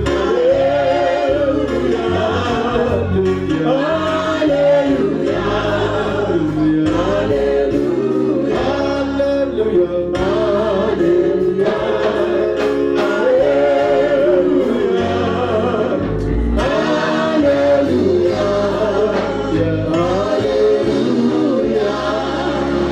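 Church choir and congregation singing a gospel welcome song with musical accompaniment, continuous throughout.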